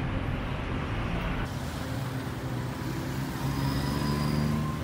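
Street traffic: a motor vehicle's engine running close by, growing louder about three seconds in and easing off near the end.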